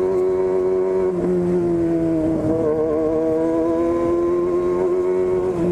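Yamaha FZ6 inline-four engine running through a straight-through 4-into-1 exhaust with no silencer. It holds a steady, loud note with two brief dips, about a second in and near the end.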